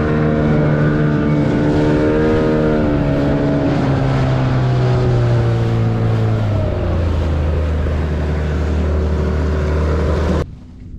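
Boat motor running under way, a steady engine note that drops to a lower pitch about seven seconds in, then stops suddenly near the end.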